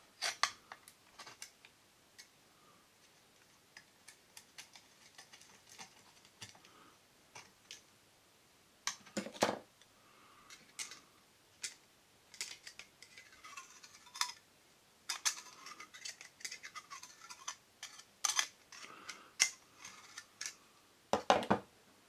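Pliers and thin tin-can sheet metal clicking and clinking as a small nut and bolt are tightened on the pivot of a homemade folding knife. The clicks come irregularly, with the loudest about nine seconds in and again near the end.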